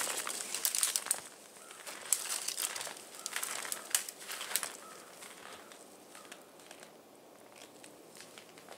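Footsteps crunching through snow, a quick run of crisp crunches that grows fainter after about five seconds as the walker moves away.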